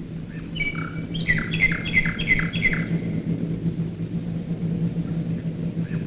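Common nightingale singing a phrase of a couple of clear notes followed by a quick run of repeated down-slurred notes, about three a second, in the first half. Beneath it runs the steady low drone of massed Wellington and Lancaster bomber engines flying overhead.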